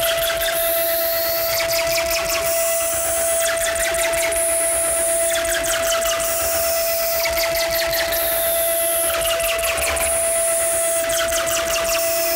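Electronic noise and feedback music: one steady tone held throughout, under a repeating cycle of crackling clicks and falling sweeps that comes round about every two and a half seconds.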